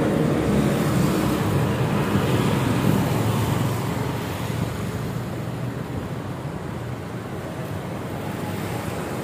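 Roadside street traffic: a noisy rumble of passing vehicles, louder for the first few seconds, then easing to a steadier, quieter traffic hum.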